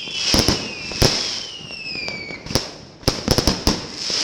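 New Year's Eve fireworks and firecrackers going off: sharp bangs with several whistles falling in pitch over the first two seconds or so, then a quick run of bangs from about three seconds in.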